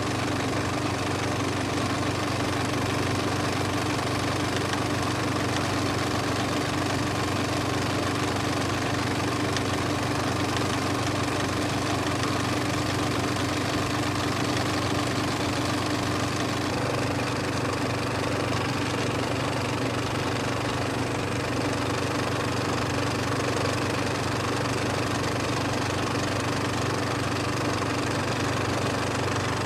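Steady mechanical drone with a low hum of several fixed tones that holds unchanged throughout.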